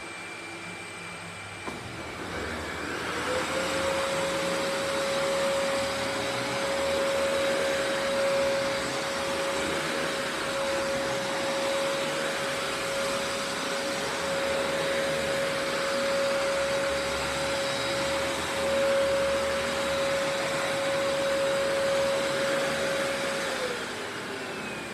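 Sebo Felix upright vacuum running on a rug. About two seconds in, after a click, its brush roll is switched on: a hum rises in pitch, then holds steady over the motor's noise. Near the end the hum falls away as the brush roll winds down.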